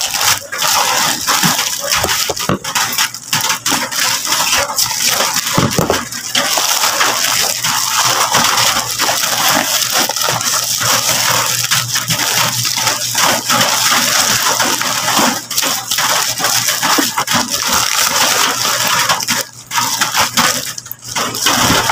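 Clear plastic bag and plastic courier pouch crinkling and rustling as hands unwrap a parcel, a dense crackle of many small crunches.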